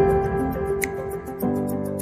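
Background music of sustained notes, moving to a new chord about one and a half seconds in.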